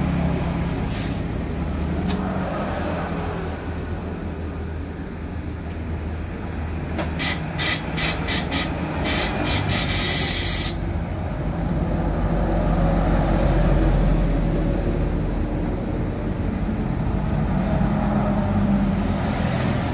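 Steady rumble of road traffic, with a run of sharp clicks, about three a second, for some four seconds in the middle.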